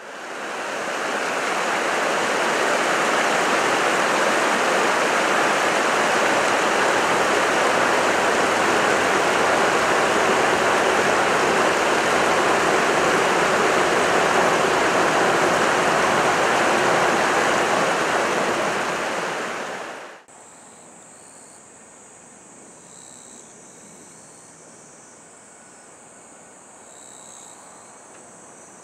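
A loud, steady rushing noise like flowing water, fading in at the start and fading out at a cut about 20 seconds in. After the cut it is much quieter, with a steady high-pitched chirring of insects.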